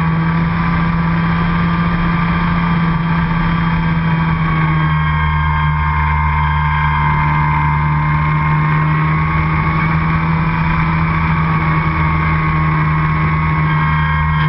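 RC airplane's motor and propeller heard from an onboard camera in flight: a steady drone with a higher whine that drifts slightly in pitch.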